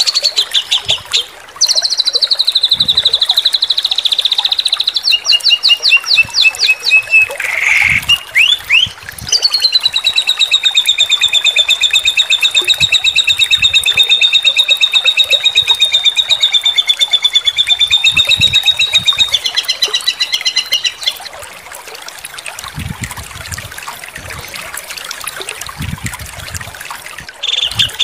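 Songbird singing very fast rapid-fire trills of repeated notes, the 'tembakan' type of song used as masteran tutor song for competition birds. One trill runs unbroken for about ten seconds. Then it goes quiet for several seconds, and another trill starts near the end.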